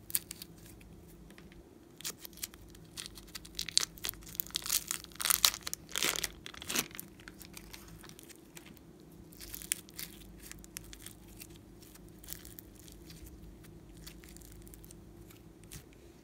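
Plastic piping bag of foam-bead slime being squeezed by hand: crackling, crunching and crinkling of the beads and bag. The crackles come thick and loudest just past the middle, then thin out to lighter crackles.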